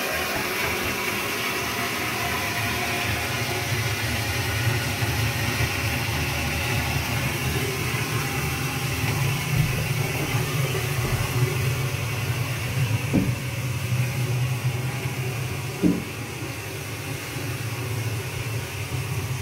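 High-level toilet cistern refilling after a flush: a steady rushing hiss of water with a low hum from the pipes. Two short knocks come a few seconds apart in the later part.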